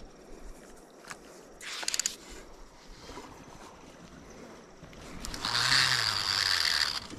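Cast with a conventional revolving-spool fishing reel: a quick run of clicks about two seconds in, then a louder rasping whirr from the reel lasting about a second and a half near the end.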